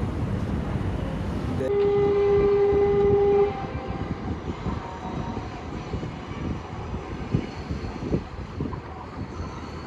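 Train horn sounding one steady blast of nearly two seconds, starting about two seconds in, over the steady rumble of a passing train.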